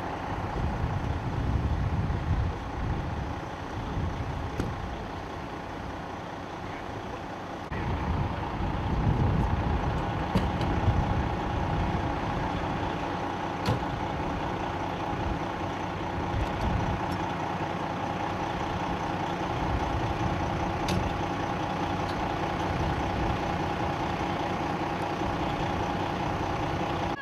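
Vehicle engines idling: a steady drone with a constant hum. Uneven low rumbling swells in the first few seconds and again around eight to twelve seconds in.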